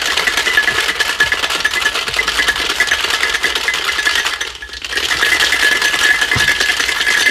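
Ice rattling hard inside a metal tin-on-tin Boston cocktail shaker being shaken vigorously, a dense, rapid rattle that breaks off briefly about halfway through and resumes. This is the wet shake with ice that chills a sour mix after its dry shake.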